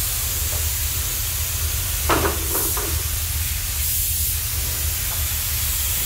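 Air spray gun hissing steadily while spraying red paint onto a camper body, over a steady low hum. A brief louder sound about two seconds in.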